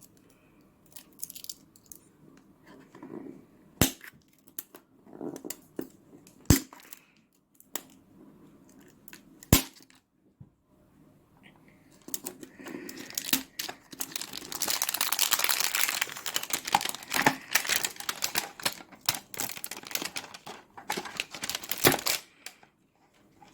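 Plastic packaging of a toy volcano being torn and crinkled as it is opened, with three sharp snaps in the first ten seconds and then a long stretch of steady crinkling and tearing.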